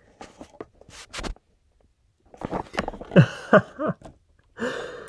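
Light clicks and rustles of amplifier wiring being handled, then a man's short wordless vocal sounds, several falling in pitch, in the second half.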